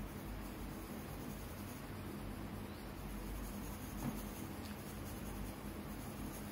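Pencil shading on drawing paper, a soft steady scratching of graphite strokes, with a light tap about four seconds in.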